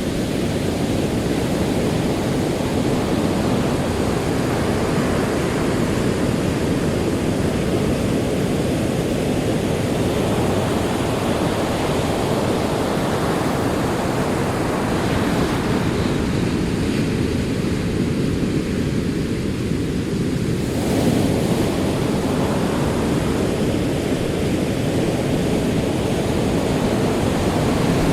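Ocean surf: a continuous rush of rolling waves, swelling and easing.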